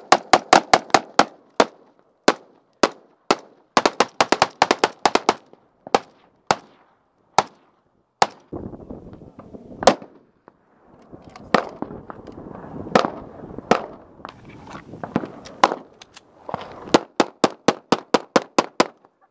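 Gunfire from rifles and a handgun: strings of sharp cracks, up to about six shots a second, broken by short pauses.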